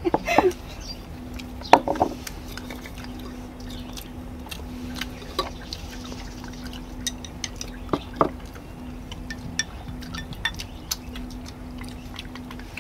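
Chopsticks and spoons clicking and clinking against small ceramic bowls as several people eat, scattered light clicks with a couple of louder knocks, over a faint steady hum.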